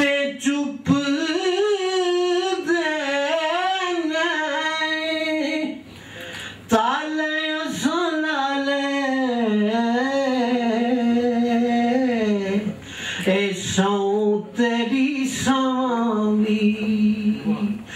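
A man singing a Punjabi ghazal solo in tarannum style, in long held notes with gliding ornaments. He pauses briefly for breath about six seconds in and again near thirteen seconds.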